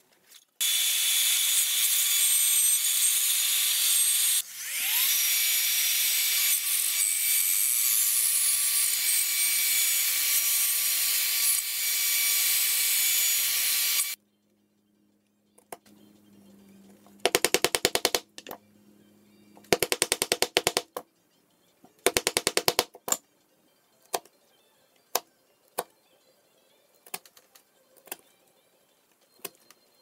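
A power tool runs at a steady high speed for about thirteen seconds, dips briefly about four seconds in and winds back up, then cuts off. Three short bursts of rapid clicking follow, then single sharp clicks about a second apart, as a chisel works the corners of the walnut frame.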